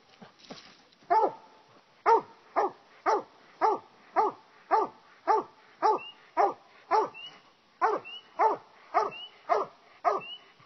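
Coonhound barking treed: a steady chop of short barks, about two a second, each dropping in pitch. This is the hound's signal that it has game up the tree.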